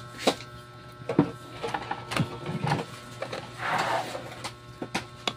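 Scattered clicks and knocks with a short rustle about three and a half seconds in as a digital multimeter and its test leads are handled on the workbench, over a steady low hum.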